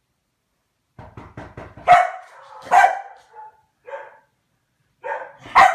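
A dog barking several times. A short run of quick ticks comes first, then the barks come irregularly, some loud and some softer.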